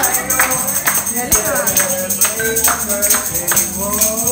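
Restaurant staff singing a birthday song, keeping a steady beat by shaking and striking a metal tambourine about twice a second.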